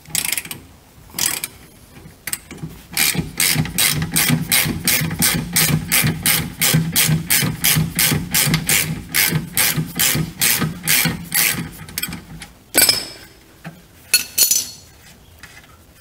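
Hand socket ratchet clicking in quick, even strokes, about three or four a second, as a 16 mm lower shock absorber bolt is loosened. A couple of louder knocks follow near the end.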